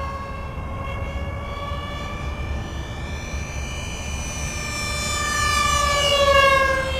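Twin electric ducted fans of an RC SR-71 Blackbird jet whining in flight. The whine climbs in pitch, grows loudest about six seconds in, then drops in pitch as the jet passes by.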